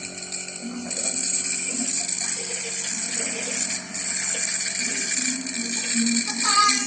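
Home nebulizer compressor running, a steady mechanical buzz with the hiss of air and mist.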